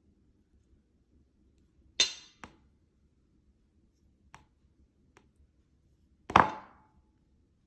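Kitchenware clinking: two sharp clinks about four seconds apart, the first with a brief ring, and a few light taps between them.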